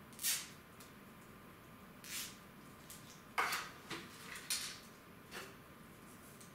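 Power-supply cables being bundled with plastic cable ties inside a PC case: about six short plastic rustles and clicks, the loudest cluster about halfway through.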